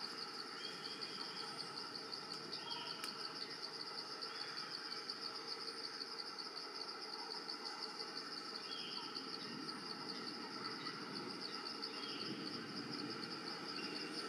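Steady chorus of forest insects with a rapid, even pulse, and a few short chirps over it now and then.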